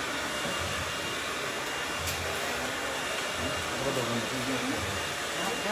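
Steady rushing of a hair dryer running, with indistinct voices of people talking in the background.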